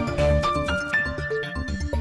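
Music with a fast, steady beat and held pitched notes.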